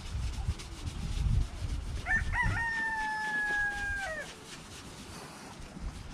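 A rooster crowing: a couple of short notes about two seconds in, then one long held note that falls away near the end. A low rumble runs beneath it, loudest in the first second or two.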